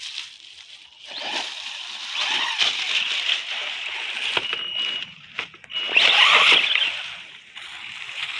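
ZD Racing MT10 1/10-scale RC monster truck driving across grass and dry fallen leaves: a rushing, crackling noise of tyres churning through the leaves. A high steady motor whine comes in twice around the middle, and the noise is loudest a little past two-thirds through.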